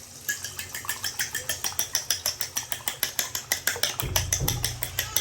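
Eggs being beaten in a bowl for scrambling, a utensil clicking against the bowl in a fast, even rhythm of about seven strokes a second. A low rumble joins about four seconds in.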